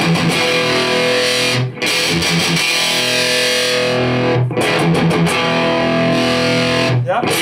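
Distorted electric guitar played through a Carlos Ramírez RP tube amplifier head with two KT88 power tubes: chords struck and let ring, a new one about every two and a half seconds, while a tone control on the amp is turned.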